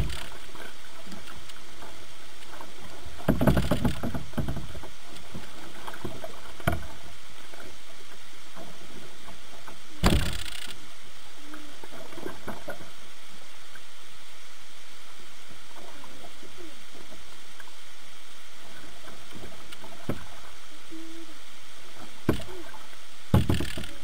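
A kayak moving through water, heard from its bow: a steady rush of water with a few short paddle splashes, the sharpest about ten seconds in and two more near the end.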